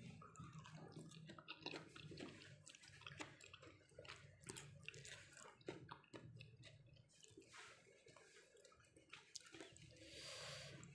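Faint close-up eating sounds: irregular wet clicks and squishes of chewing and of boiled sweet potato leaves being dipped in sambal, over a low steady hum, with a brief hiss near the end.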